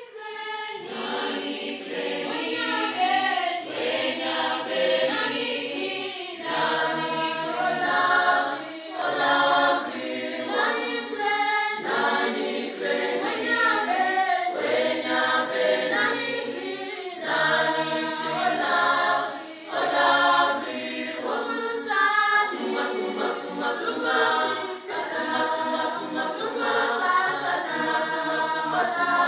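Mixed choir of men's and women's voices singing in parts, beginning right at the start. In the last third a regular beat of sharp taps keeps time under the voices.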